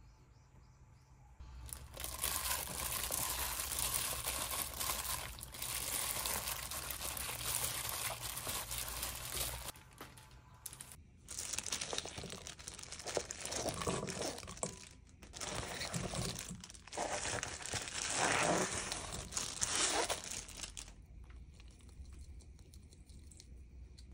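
Disposable plastic glove crinkling and rustling as a gloved hand mixes sliced pork with seasoning in a stainless steel bowl: a steady stretch of several seconds, then after a short pause a run of uneven crinkles that stops a few seconds before the end.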